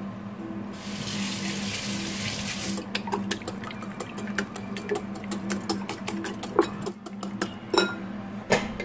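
A wire balloon whisk beating eggs in a glass bowl, its wires clicking quickly against the glass from about three seconds in. Before that comes a steady hiss for about two seconds, over a low hum that runs throughout.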